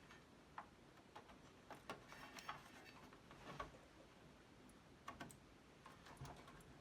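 Faint, irregular small clicks and taps as a processor ribbon cable and its connector are handled and fitted onto a computer circuit board, over near-silent room tone.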